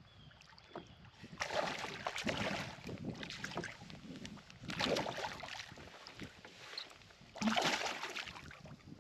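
A hooked smallmouth bass thrashing at the surface beside a canoe, splashing water in three bouts: about a second and a half in, around five seconds in, and near the end.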